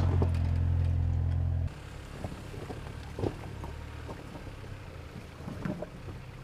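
2024 Toyota Land Cruiser off-roading over rocks: a steady low engine drone, loud and close, drops away abruptly a little under two seconds in. After that comes a quieter low rumble with scattered crunches and knocks of tyres on rock, the sharpest about three seconds in.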